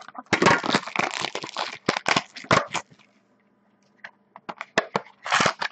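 Trading card pack packaging crackling and crinkling as it is handled and torn open, in dense rapid strokes. It stops for about a second partway through, gives a few single clicks, then starts again near the end.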